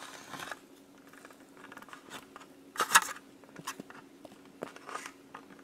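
Sticky soda-flavoured candy slime being stirred and pulled with a stick in a plastic tray: soft wet squelches and scrapes, with one sharp tap about three seconds in. A faint steady low hum sits underneath.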